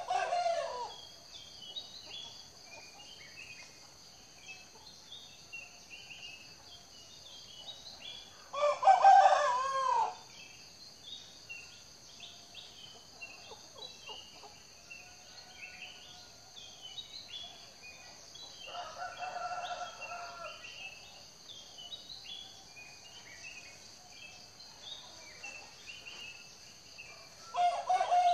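Roosters crowing: a loud crow about nine seconds in, a fainter one near twenty seconds, and crows at the very start and end. Behind them a steady high insect drone and scattered small bird chirps.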